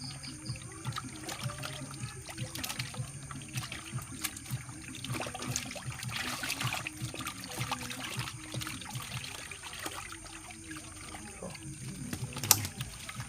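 Water trickling and splashing, with scattered small clicks and knocks and one sharp click near the end.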